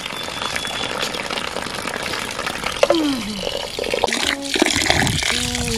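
Water running steadily from an open hose pipe and pouring into a metal pan as rice is rinsed in it.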